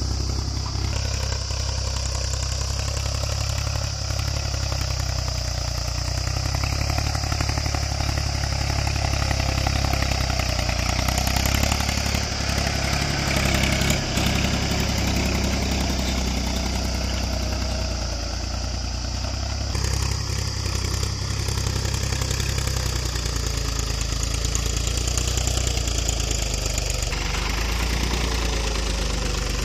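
Mahindra 275 DI tractor's three-cylinder diesel engine running steadily under load while pulling a tined cultivator through dry soil.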